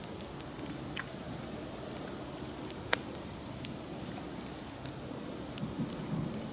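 Wood campfire burning, with scattered sharp pops and crackles over a steady hiss; the loudest pops come about three and five seconds in.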